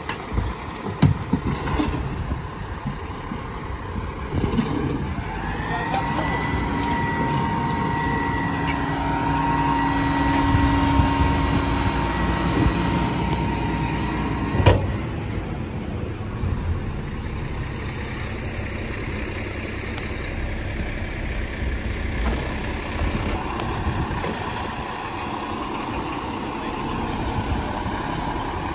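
McNeilus rear-loader garbage truck at work: trash cans banging against the hopper as they are tipped in, then the engine revs up and the hydraulic pump whines steadily for about eight seconds while the packer compacts the trash. The whine ends with one sharp bang, and the diesel runs on more quietly with a few clanks.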